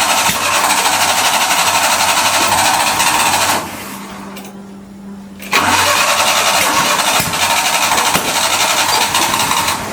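Suzuki mini truck engine cranked by its starter with starting fluid being sprayed in, in two long bursts with a pause of about two seconds between, without settling into a running idle.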